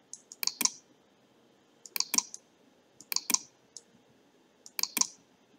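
Computer mouse buttons clicking in short clusters of two or three, about four times over a few seconds.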